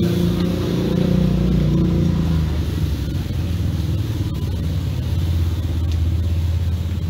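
Motorcycle engines running in the street, a steady low rumble whose pitch drops a couple of seconds in.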